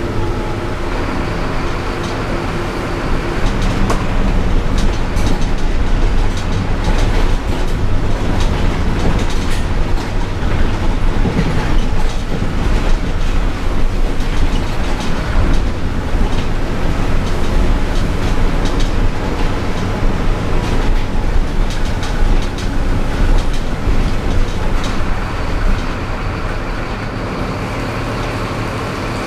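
Inside a moving city bus: the diesel engine running, with the body and fittings rattling and clattering over the road and tyres on a wet street.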